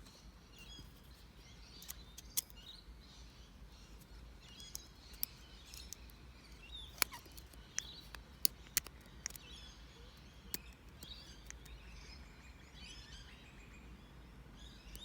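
Birds chirping in the background, with a handful of sharp metallic clicks, bunched in the middle, from a lock pick and tension wrench working a Master Lock 7040 padlock.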